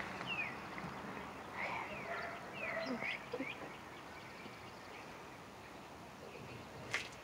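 Birds calling: a run of short chirps in the first three seconds or so, over a quiet outdoor background. Near the end comes a single sharp tap.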